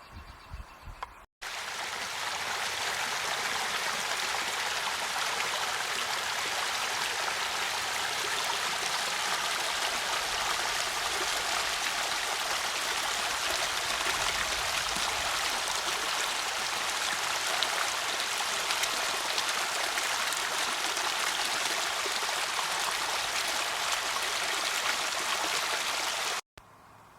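Running water from a stream or small spillway, a steady, even rush. It starts abruptly about a second in and cuts off near the end.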